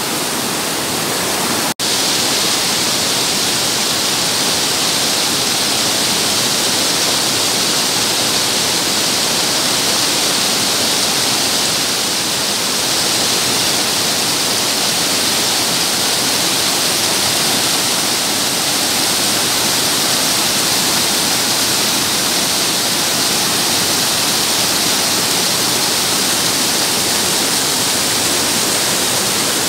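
Fast mountain stream rushing over boulders in whitewater rapids: a loud, steady rush of water, cut off for an instant about two seconds in.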